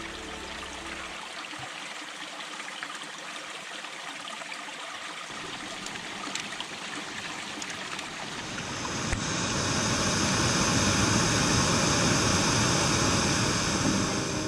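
Water running in a stream, a steady rush that grows louder about two-thirds of the way in.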